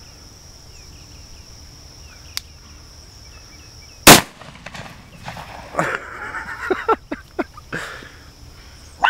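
A single blast from a Remington 870 Express pump-action shotgun about four seconds in, with a brief echo. A steady cricket chirring runs underneath, and a few knocks and scuffs follow the shot.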